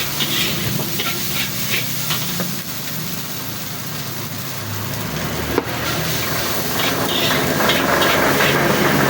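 Food sizzling in a wok while a metal spatula stirs and scrapes against the pan, with one sharp knock about five and a half seconds in.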